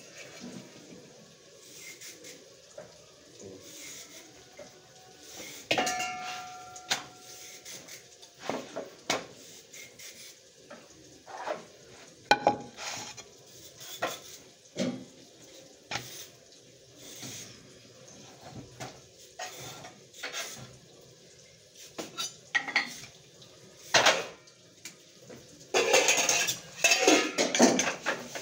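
Steel kitchen utensils clattering and clinking at a gas stove, a string of separate knocks and taps. One metal clang rings briefly about six seconds in, and near the end a spoon scrapes and stirs in a steel pot.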